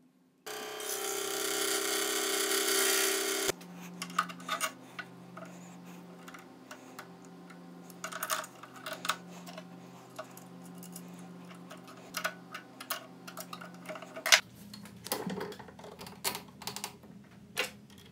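A power tool's motor runs with a steady whine for about three seconds and cuts off suddenly. A low hum follows with scattered clicks and knocks of metal parts being handled.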